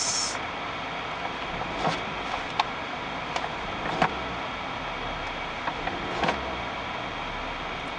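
BMW 523d's 2.0-litre four-cylinder turbodiesel revved in Park, heard from inside the cabin. The revs rise to about 1,800 rpm and fall back in an unhurried, diesel-like way, the sound staying subdued, with a few light clicks along the way.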